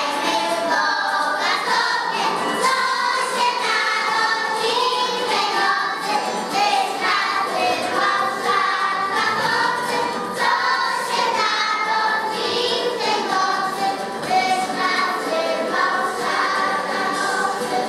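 A group of young children singing a Christmas carol together, without a break.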